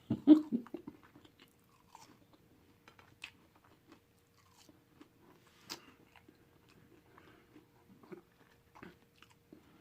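A person chewing food close to the microphone, with scattered soft mouth clicks and smacks.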